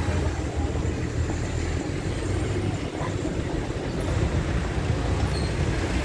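Busy city street ambience: a steady low rumble of car and van engines in slow traffic, with the noise of a crowd of passers-by.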